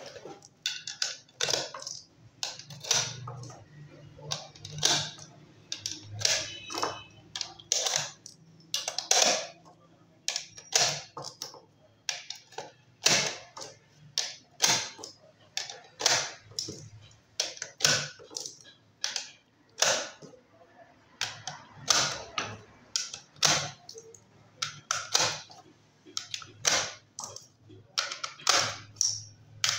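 Cartridges in .308 (7.62×51 mm) being pressed one at a time into an HK G3 rifle box magazine, each round snapping into the feed lips with a sharp metallic click. The clicks come irregularly, about one or two a second, some in quick pairs.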